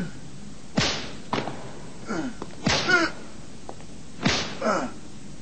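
Whip lashes, three sharp cracks about every second and a half, each followed by a man crying out in pain.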